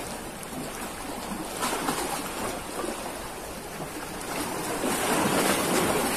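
Small sea waves washing and lapping against shoreline rocks, with some wind on the microphone; the wash swells louder near the end.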